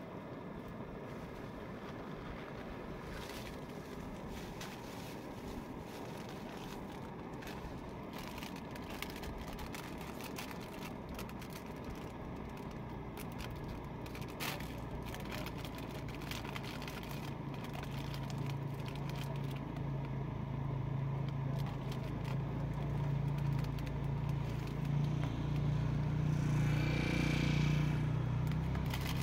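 A low engine drone, its source out of sight, grows steadily louder through the second half. Under it, light crinkling and rustling of a plastic packet being handled.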